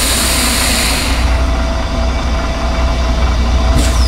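Compressed air hissing out through an asphalt distributor's spray-bar nozzles as the air purge blows leftover bitumen out of the bar. The hiss stops about a second in and another burst starts near the end, over the truck engine running steadily.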